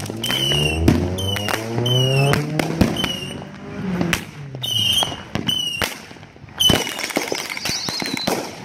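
Neighbourhood consumer fireworks going off: a run of sharp bangs and crackling pops, the loudest just under a second in and again near seven seconds. Short, high, falling whistle-like tones come in between, about once a second.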